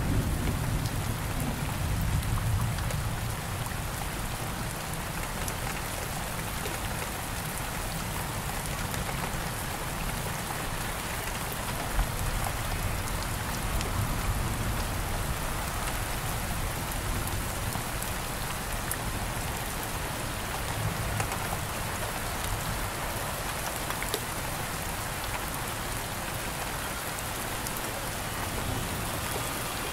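Steady rain falling, a dense even patter with a low rumble underneath.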